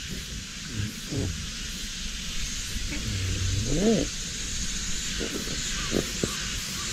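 Steady hiss of water running from a garden hose into a water-filled inflatable boat, with a few short low voice sounds, the clearest rising and falling near the middle.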